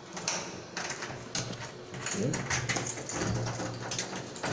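A door's knob and lock being worked by hand: a run of irregular metallic clicks and rattles, over a steady low hum.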